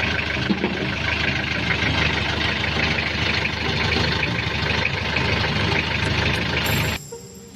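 Mitsubishi L300's 2.5-litre four-cylinder diesel engine idling steadily, an engine the seller calls healthy and free of blow-by; the sound cuts off suddenly about seven seconds in.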